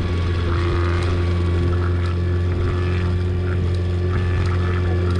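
Boat engine running steadily, a constant low drone with no change in pitch.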